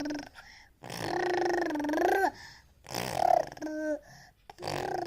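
Drawn-out silly vocal sounds made in turns, several in a row, each up to about a second and a half long, with a wavering pitch that bends at the end.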